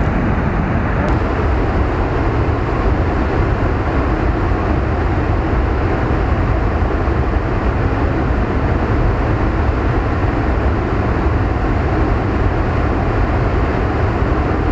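Steady rushing of a fast-flowing river, with wind buffeting the microphone.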